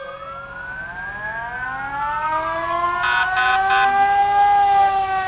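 Several fire truck sirens wailing at once, their pitches rising and falling out of step with each other and growing louder, with three short blasts about three seconds in.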